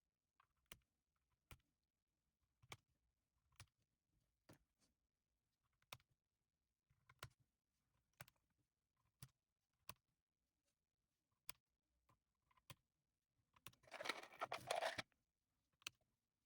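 Keystrokes on an Akko M1 V5 mechanical keyboard with EPOMAKER Bluebird switches: single keys pressed and released about once a second, then a quick flurry of keystrokes lasting about a second near the end.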